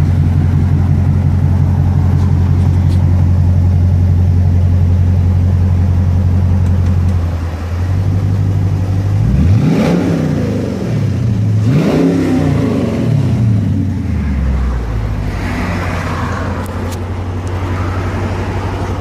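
Dodge Challenger R/T Shaker's 5.7-litre HEMI V8, fitted with exhaust cutouts, idling steadily and loudly, then blipped twice about ten seconds in, each rev rising and falling in pitch, before settling back to idle.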